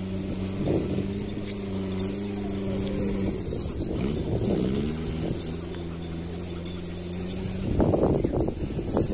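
An engine running steadily with a low hum. Its pitch dips and climbs again about four seconds in, and it fades out near the end. Two short knocks come shortly before the end, and there is high chirping above the hum.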